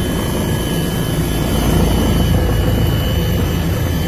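Helicopter engine and rotor running steadily and loudly, with a faint steady high whine over the low drone.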